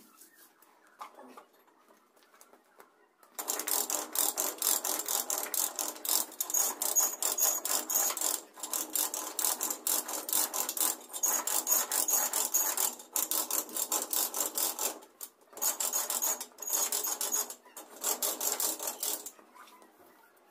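Stiff-bristled hand brush scrubbing rapidly back and forth across a floor during surface preparation for terrazzo: a dense run of quick, scratchy strokes starting about three seconds in, broken by a few short pauses, and stopping just before the end.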